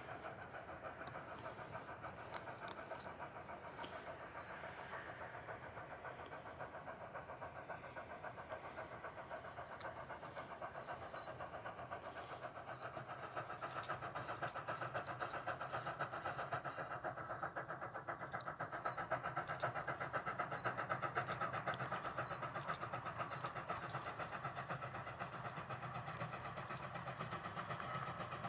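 Ex-Canadian National 2-6-0 mogul steam locomotive No. 89 working a freight train, its exhaust chuffing in a fast, even beat. It grows louder partway through as it draws nearer.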